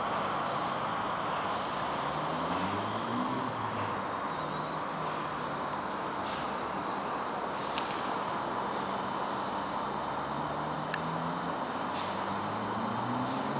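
Steady hiss of a gas-fired ceramic burner heating a Mamod beam engine's boiler while it comes up to pressure. A low engine hum rises in pitch a couple of seconds in and again near the end.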